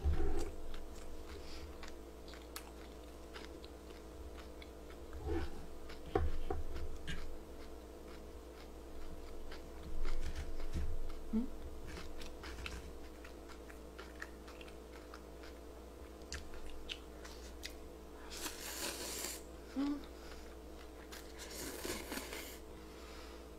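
Close-miked chewing with wet mouth clicks and pops, then two longer slurps of cold naengmyeon noodles near the end.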